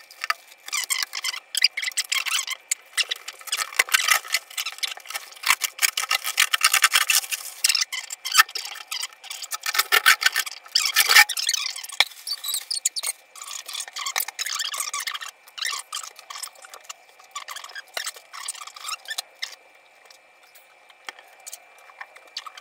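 Clear plastic protective film being peeled off a 3D printer's glass panels and crumpled by hand: dense crackling and rustling that thins out after about fifteen seconds and dies down near the end.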